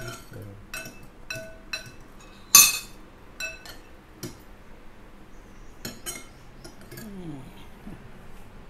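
Spoons and tableware clinking against dishes and bowls as food is served at the table: a dozen or so short, ringing clinks, closer together in the first half, the loudest a sharper clatter about two and a half seconds in.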